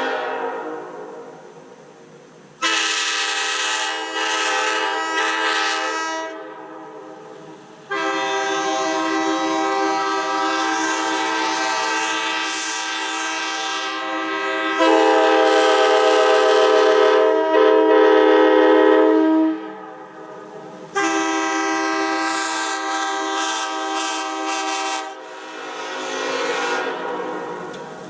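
Multi-tone train-style air horn sounding a chord in three long blasts. The middle blast is the longest and grows louder partway through, and each blast trails off as it stops.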